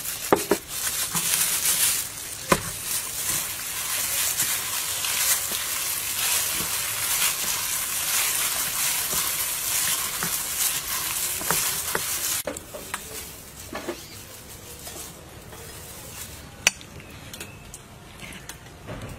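Wire whisk beating flour into a wet batter in a bowl: a steady, fast wet swishing with quick strokes. About twelve seconds in it drops away to a quieter stretch with a few light clinks and one sharp click.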